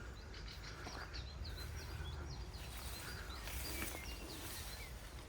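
Small birds chirping: a run of short, high calls, several a second, over a steady low background hiss.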